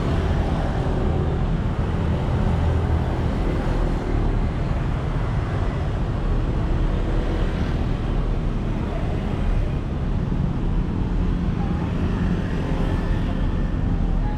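Steady city road traffic noise: a continuous low din of passing vehicles.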